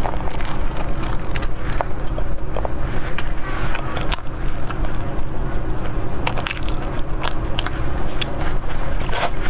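Close-miked eating sounds: a soft orange bun filled with pumpkin puree is pulled apart and bitten, giving scattered sharp clicks, crackles and mouth sounds. A steady low hum runs underneath.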